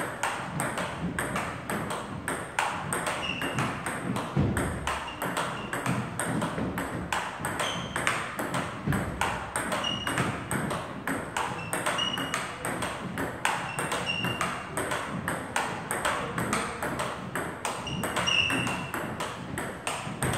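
Table tennis rally: the ball clicks sharply off the paddles and the table in a quick, steady succession as two doubles players take alternate shots.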